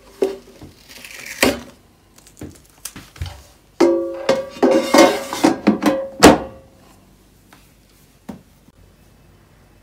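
Knocks and clatter of a récolte Air Oven air fryer's metal basket and pull-out drawer being handled, some knocks ringing briefly. The drawer is slid out and then pushed back in with a sharp clunk about six seconds in.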